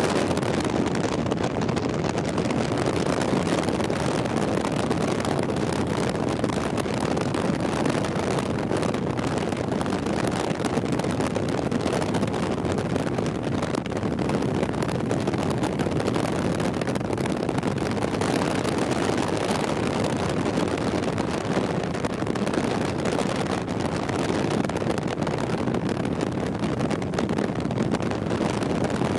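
Steady road and wind noise of a car driving at highway speed, heard from inside the cabin.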